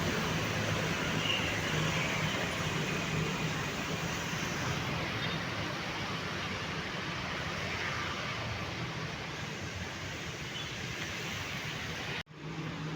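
Steady road-traffic and vehicle engine noise, with a low engine hum running under a haze of traffic sound.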